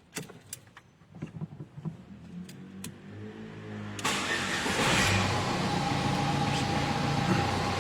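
Ford Fiesta engine being started: a few clicks, then the starter cranks with a rising whine. The engine catches about four seconds in and settles into a steady idle. This is the test start after the timing-belt tensioner was reset, to check whether the abnormal belt noise returns.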